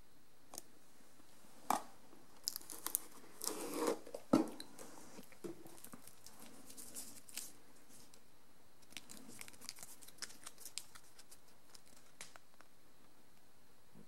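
Handling noise as a watch is lifted out of its presentation box and its paper hang tag is turned in the fingers: scattered clicks, light knocks and rustling, with the sharpest knocks in the first few seconds.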